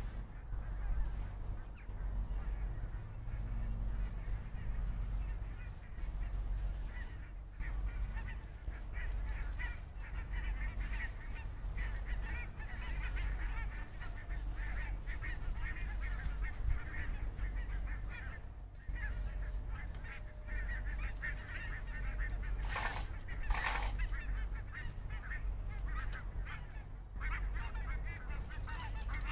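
Many short, faint bird calls repeating over a steady low wind rumble on the microphone, with two brief rustling noises about three-quarters of the way through.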